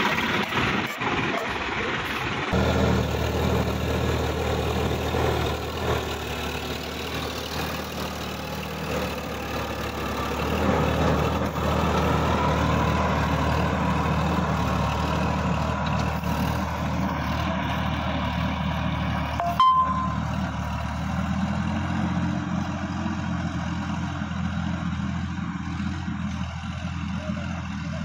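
Sonalika DI-50 RX tractor's diesel engine running steadily as it pulls a rotary tiller through the soil. The sound changes abruptly about two and a half seconds in, and there is one sharp click about twenty seconds in.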